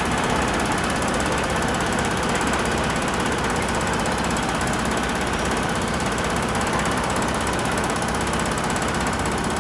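Excavator diesel engine running steadily under work, with a fast, even rattle.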